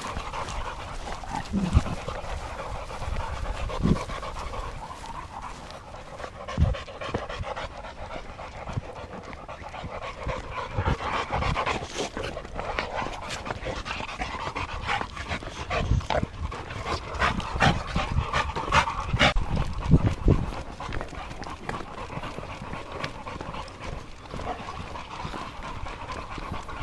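Boxer dogs panting steadily, with scattered thumps.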